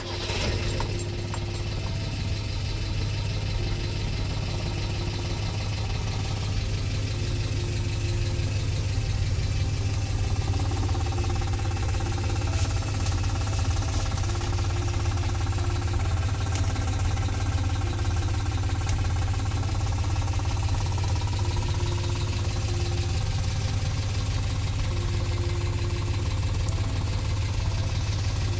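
Peugeot 204's four-cylinder engine idling steadily.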